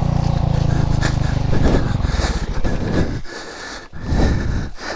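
KTM 530 EXC's single-cylinder four-stroke engine running with the bike down on its side in the dirt, then stopping about three seconds in. After it stops, hard breathing in short bursts.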